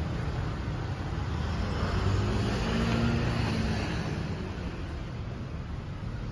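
A car passing on the street, its engine swelling about two seconds in and fading after the fourth second, over a steady background of city traffic noise.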